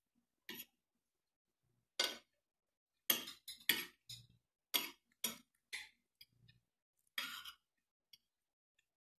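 Spoon and fork clinking and scraping against a plate while eating: about nine short, sharp strokes at uneven intervals.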